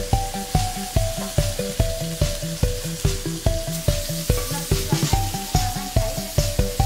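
Tofu cubes sizzling as they fry in oil in a pan, stirred with chopsticks, under background music with a steady beat of about two beats a second and a simple melody; the music's beat is the loudest thing.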